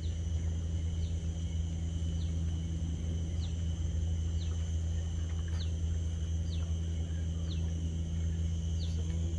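A steady low hum, with a short high falling chirp repeating about once a second.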